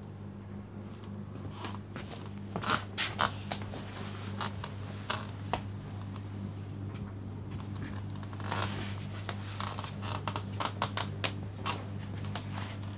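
Handling noise of a phone being carried around: irregular scratches, rubs and clicks, over a steady low hum.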